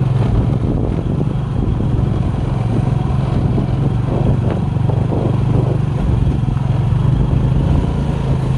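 A road vehicle's engine running at a steady pitch while under way.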